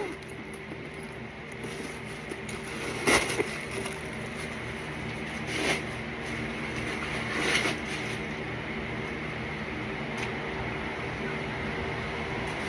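Three brief handling noises from a crossbody handbag being turned and opened, about three, six and seven and a half seconds in, over a steady background hum.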